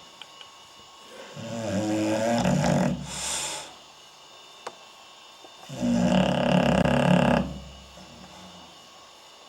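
English Bulldog snoring in its sleep: two loud, rattling snores about four and a half seconds apart, the first followed by a short hissing breath.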